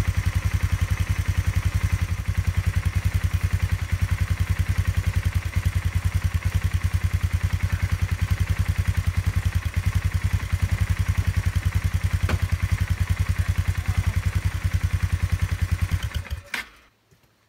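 Polaris Ranger 570's single-cylinder engine idling steadily with a rapid low chugging of about ten beats a second. A single metallic clank comes about twelve seconds in, and the engine cuts off about sixteen seconds in.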